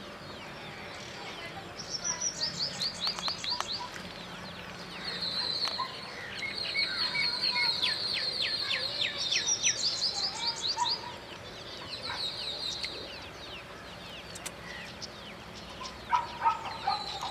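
Small birds singing: bursts of high, rapid trills and chirp series that come and go, busiest through the middle.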